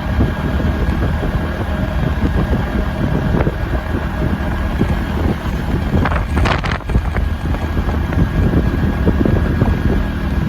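A steady engine hum under heavy wind buffeting on the microphone, with a brief gust or rush about two-thirds of the way through.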